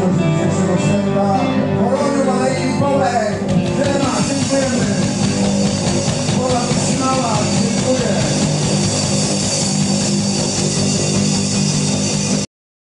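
Blues-rock band playing live on electric guitars, bass and drums. The music cuts off abruptly near the end.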